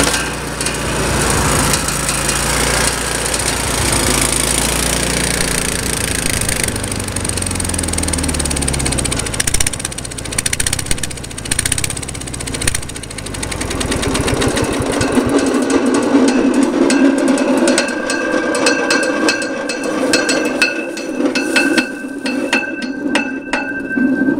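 DR wood chipper's 18 hp twin-cylinder Briggs & Stratton engine running, its pitch wavering and gliding. About fourteen seconds in the deep engine sound drops away, leaving a higher rattling, whirring noise with a thin whine.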